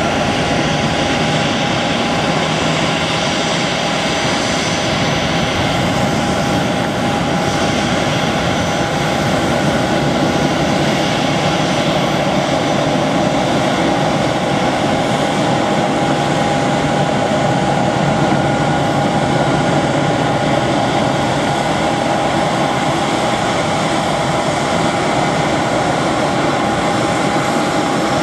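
Airbus A319-112 airliner taxiing, its twin CFM56 turbofan engines running at taxi power: a steady, loud jet rumble with a constant whine on top.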